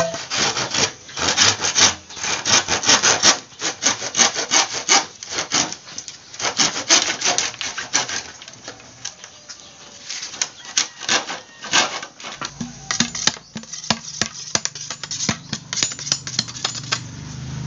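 Handsaw cutting through a green bamboo pole in quick back-and-forth rasping strokes, with a few short pauses.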